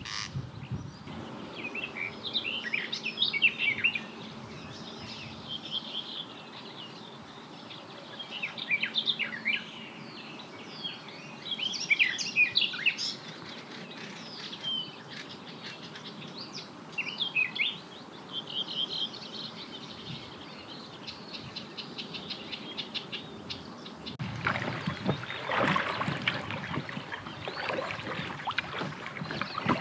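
Several songbirds singing and chirping, a mix of varied short phrases. About 24 seconds in the birdsong gives way to louder rushing and splashing of water around a moving packraft.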